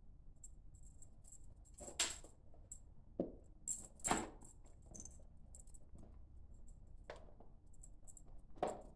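Several light thumps of a Norwegian Forest Cat kitten jumping and landing, about five spread out, with faint high clicking and scratching between them.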